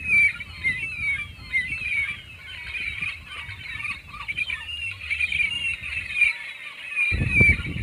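A chorus of birds calling, a dense, continuous run of short, high chirping calls. About seven seconds in, a louder low rushing noise sets in beneath them.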